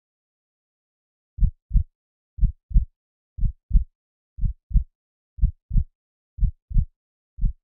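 Heartbeat sound effect: low double thumps, lub-dub, about one pair a second, starting about a second and a half in.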